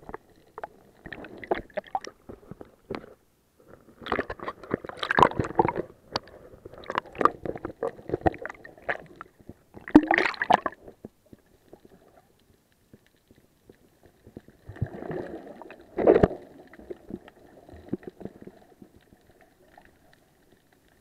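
Water sloshing and gurgling around an action camera in its waterproof housing as it moves underwater, in irregular bursts with a few sharp knocks, thinning out near the end.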